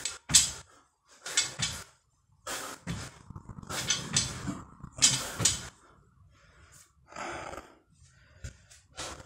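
Heavy, forceful breathing of a man straining through barbell squats: sharp breaths, often in quick pairs, packed closely through the first half, then a few softer breaths near the end.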